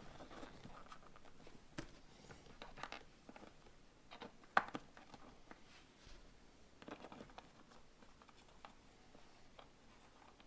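Faint handling sounds: scattered light clicks, taps and short rustles, with the sharpest tap about four and a half seconds in.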